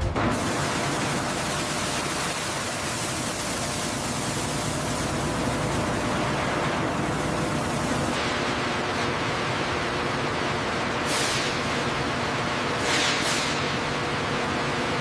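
Steady hissing noise with a faint machine hum underneath, and two falling whooshes near the end.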